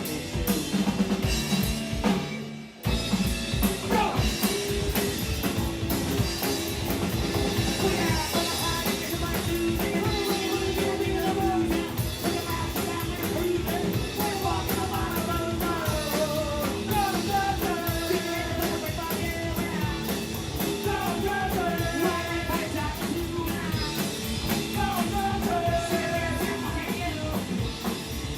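Live rock band playing: drum kit, electric guitar and bass with sung vocals. The band stops for a moment about two and a half seconds in, then comes straight back in.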